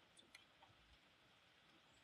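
Near silence, with a few faint, scattered ticks in the first half.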